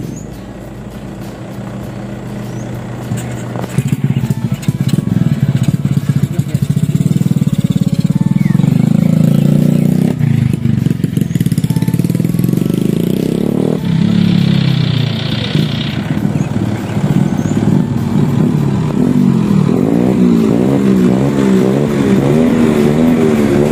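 The diesel engine of an Isuzu Elf campervan truck running as the vehicle creeps forward and pulls away. Its revs rise for a few seconds and then drop back, more than once.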